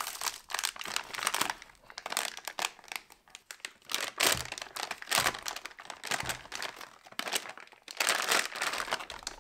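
Clear plastic vacuum bag crinkling and rustling in irregular crackles as it is cut open with a knife and pulled off a spool of PLA filament.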